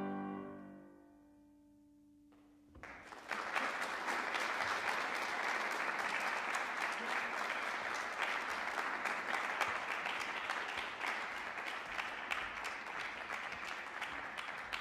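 The final piano chord of the piece rings and dies away. About three seconds in, audience applause starts and continues steadily.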